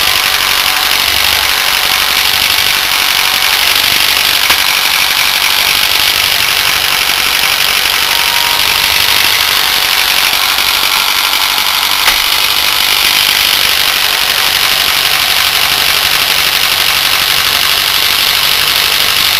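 24-volt DC brushed electric wheelchair motor driving its reduction gearbox and differential, running steadily under power on its final test with a continuous whir. A brief click comes about four seconds in and another about twelve seconds in.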